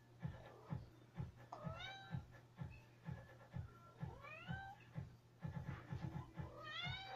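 A cat meowing, three drawn-out meows that rise and fall in pitch, with a regular low thud about twice a second underneath.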